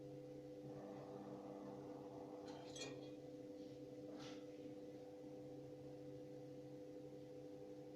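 Faint steady hum of a pellet stove's exhaust fan running during ignition, with two brief rustling clicks near the middle.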